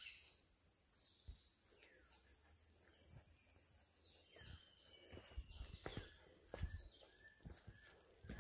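Faint jungle ambience: a steady high insect drone with scattered bird chirps, and a few soft low thumps about halfway through.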